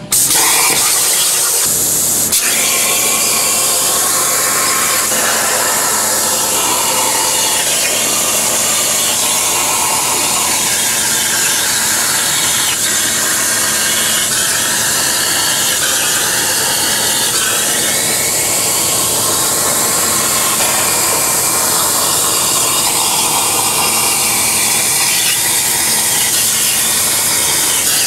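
CNC plasma cutter torch cutting a steel plate: a loud, steady hiss of the plasma arc and its air stream, with a whining tone in it that rises and falls over and over.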